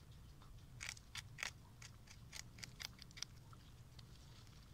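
Peruvian guinea pig biting and chewing a raw fennel bulb: a quick run of crisp crunching snips from about a second in until a little past three seconds.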